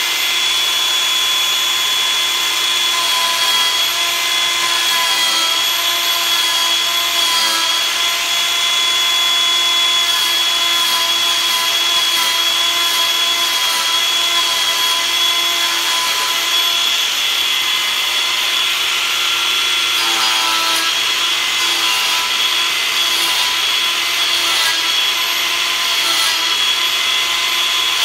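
Angle grinder running steadily and grinding into oak wood: a constant whine over rough abrasive noise.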